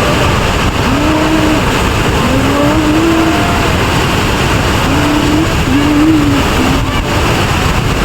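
Loud, steady roar of a large waterfall and its spray. A faint melodic voice carries over it in a handful of drawn-out notes.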